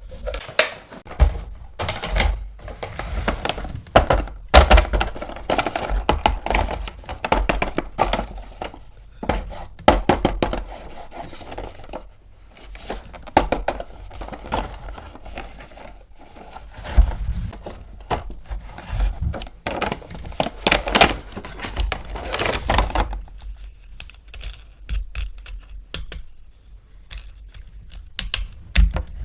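Hands handling small plastic toy parts and their packaging: an irregular run of clicks, knocks and crinkling, quieter for the last several seconds.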